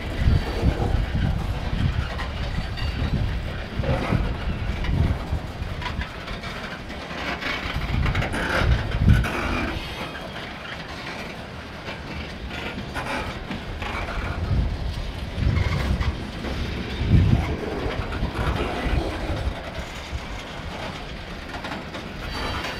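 Covered hopper cars of a freight train rolling past, their wheels thumping and clicking over the rail joints at irregular intervals over a steady low rumble.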